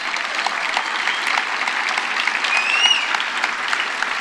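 Audience applauding, a dense steady clatter of many hands clapping. A single short whistle that rises then falls sounds through it about two and a half seconds in.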